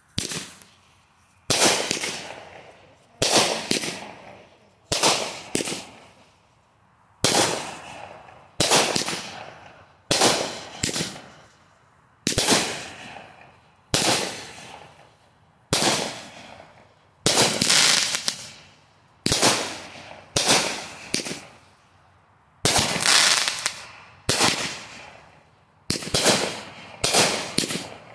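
A multi-shot consumer fireworks cake, the "Highfalutin," firing shot after shot. There is a loud bang about every one and a half seconds, some coming in quick pairs, and each one fades out before the next.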